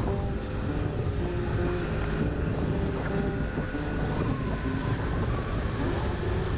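Honda Vision 50 moped scooter running along at speed, its engine and road noise mixed with wind buffeting the microphone.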